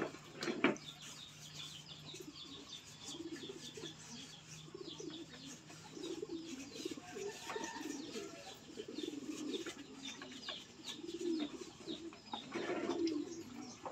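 Racing pigeons cooing at the loft in repeated low, bubbling phrases, with small birds chirping high over them. Two sharp clacks sound near the start.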